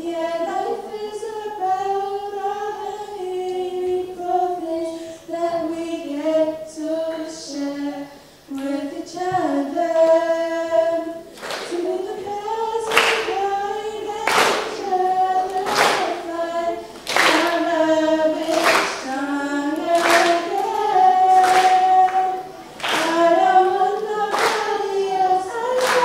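Two girls singing into handheld microphones, unaccompanied. From about twelve seconds in, steady hand claps keep time, a little under one a second.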